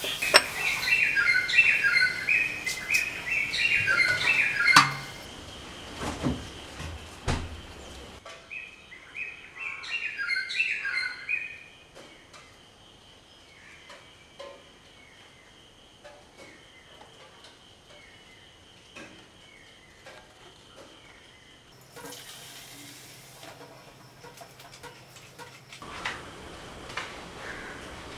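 A bird calling in rapid runs of short chirping notes, loud through the first few seconds and again around ten seconds in, then fainter, spaced chirps.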